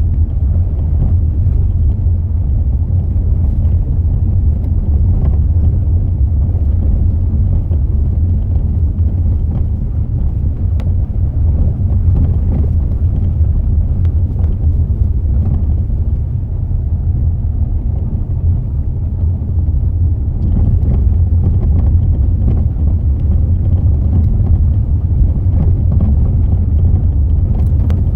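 Mazda 6 on the move: a steady low road rumble with scattered light knocks from the front steering and suspension, the knocking fault the owner is chasing.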